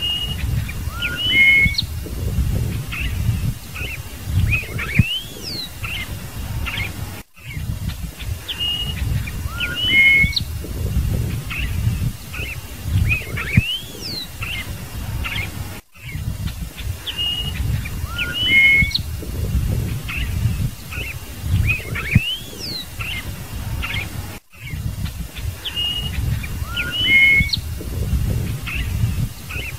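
Scarlet-headed blackbird (cardeal-do-banhado) singing: clear whistled notes and quick rising slurs over a low rumble. The same sequence of phrases repeats about every eight and a half seconds after a brief break, as a looped recording.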